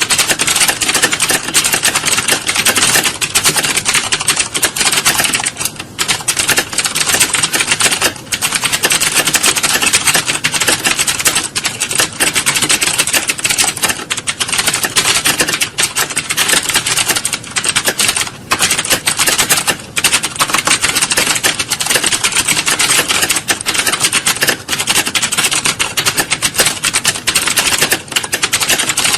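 Many computer keyboards being typed on at once: a dense, unbroken clatter of key clicks, as in an exam hall full of candidates sitting a typing test.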